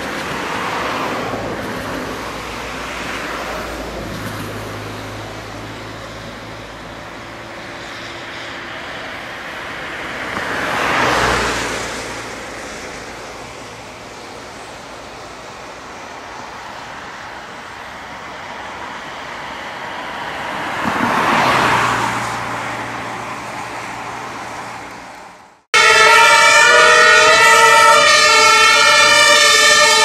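Street traffic with vehicles passing close by three times, each swelling and fading, over the low hum of idling engines. About 26 s in the sound cuts off abruptly and loud music starts.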